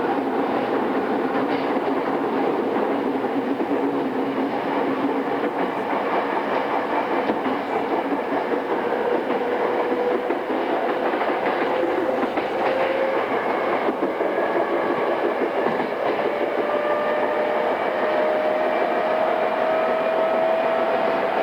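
E217-series electric train running, heard from inside a motor car: the rumble of wheels on rail, with some clacking over rail joints. A whine from the GTO-thyristor inverter and traction motors climbs slowly in pitch through the second half as the train gathers speed.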